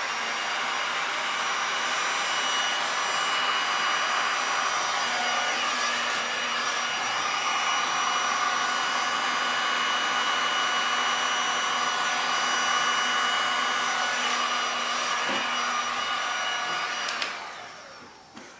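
Electric hot-air blower running steadily with a motor whine, pushing wet epoxy resin around on a tile. It switches off about 17 seconds in.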